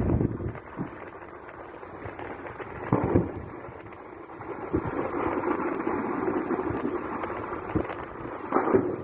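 An ammunition depot exploding, heard through a phone's microphone: a rough, rumbling wind-buffeted noise with dull booms of detonating munitions, the loudest about three seconds in and again near the end.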